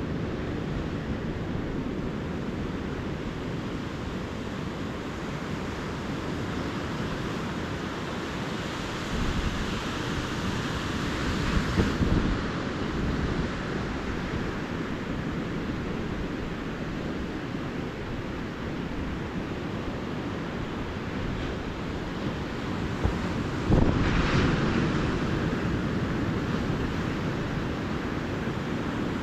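Calm ocean surf washing steadily onto a beach, with louder waves breaking about eleven seconds in and again about twenty-four seconds in.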